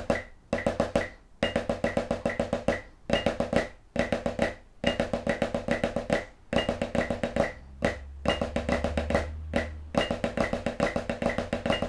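Snare drum playing Swiss Army triplets, a flam-led triplet rudiment, at quarter note = 140: quick, evenly spaced strokes in repeated phrases broken by short rests.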